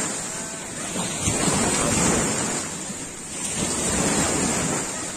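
Surf washing on the beach: an even rush of noise that swells and eases every couple of seconds as waves break.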